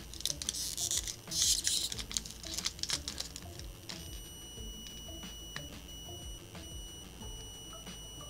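Foil booster-pack wrapper crinkling and tearing in the hands for the first couple of seconds, then light clicks of cards and wrapper being handled. About four seconds in, a faint steady high electronic tone starts.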